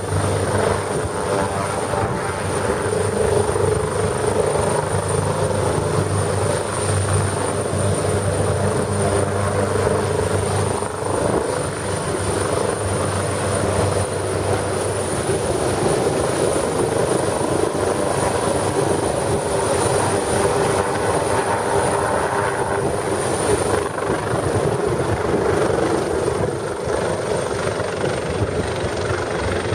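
AugustaWestland AW139 twin-turbine helicopter lifting off and climbing away: steady rotor noise with a continuous high turbine whine.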